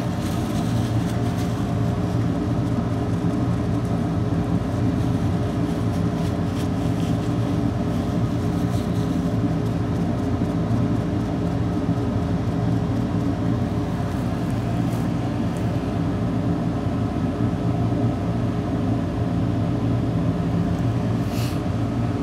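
Steady hum of an electric fan or blower running, with a constant low drone; a faint tick near the end.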